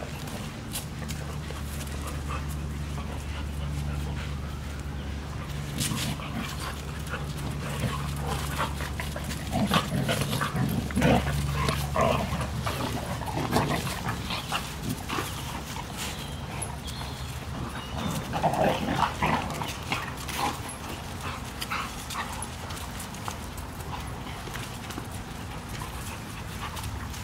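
Several dogs play-wrestling: scuffling, with short vocal noises that are loudest about a third of the way in and again about two-thirds in, over a steady low hum.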